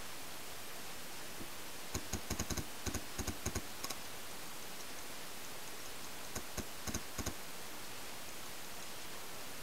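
Paintball markers firing in two quick strings of sharp pops, about a dozen shots in the first and five or six in the second, over a steady hiss.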